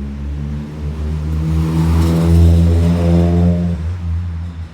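A car driving past with a loud, low engine and exhaust note, growing louder to a peak about halfway through and then fading.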